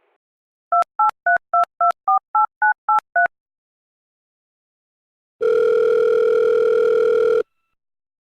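Touch-tone telephone keypad dialing ten digits in quick succession, about four beeps a second, each a two-note tone. After a short pause comes one steady two-second ringing tone in the earpiece as the call rings through.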